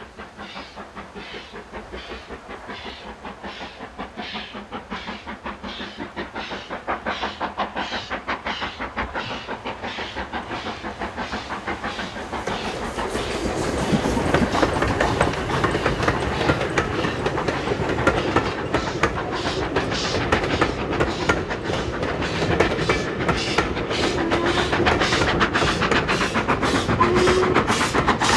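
Steam locomotive hauling a passenger train towards the listener and working hard, with a steady rhythm of chuffing exhaust beats. The beats start faint, grow much louder about halfway through, and are loud as the engine comes close near the end.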